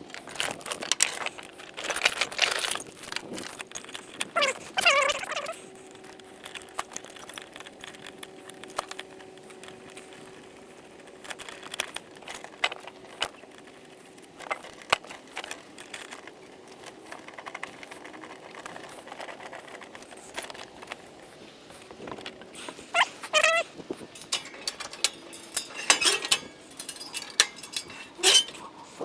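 Irregular metallic clinks and knocks of winch rigging being handled, with a few short chirps in between.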